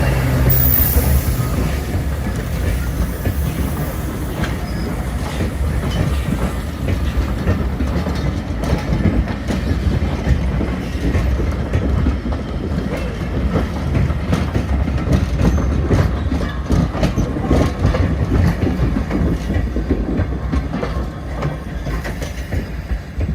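Train running on the line, its wheels rumbling and clattering over the rail joints.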